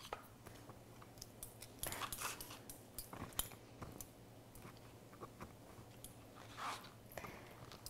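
Kitchen knife slicing a tomato on a wooden cutting board: faint crisp cuts and light clicks of the blade against the wood, scattered through, followed by soft handling of the slices.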